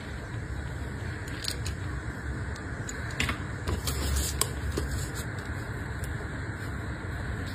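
Hands wrapping and tying a thin cord around a paper-wrapped package: scattered light clicks and taps, with paper and cord rubbing, over a steady low hiss.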